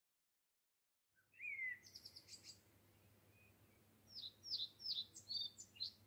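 Birdsong starting about a second in after silence. A short falling whistle is followed by a quick run of high chirps, and in the second half comes a string of sharp downward-slurred notes.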